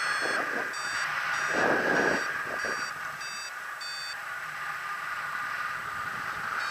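Paragliding variometer beeping in short, evenly spaced climb tones, about seven in four seconds, then falling silent, over a steady rush of wind. The beeping signals that the glider is climbing in a thermal.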